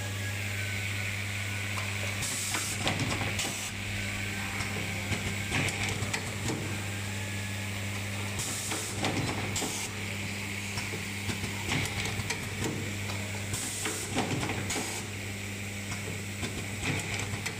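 Pneumatic automatic wire soldering machine running with a steady low hum, and several short bursts of air hiss from its pneumatic cylinders venting, some in pairs, among small clicks and knocks.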